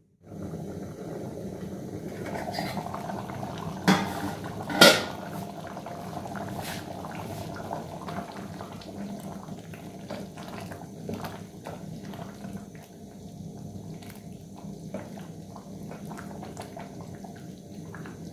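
Pea, potato and meat stew bubbling steadily in an aluminium pot. About four seconds in, two sharp metallic clanks as the aluminium lid is lifted off, followed by a wooden spoon stirring and knocking lightly against the pot.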